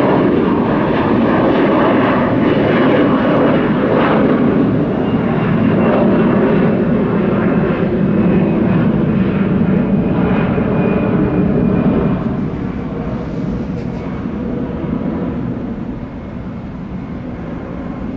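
Jet airliner engines running loud as the aircraft passes, a thin whine above the rumble, easing off over the last several seconds.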